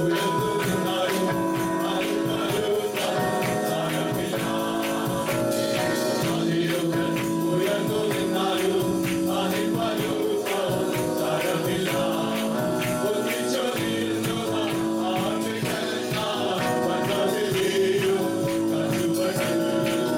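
Live praise-and-worship song: a band playing while a group of voices sings, with a tambourine shaking on a steady beat.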